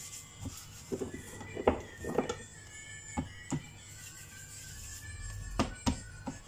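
Soft background music, with a series of sharp taps and thuds as hands press and pat dough on a floured plastic cutting board.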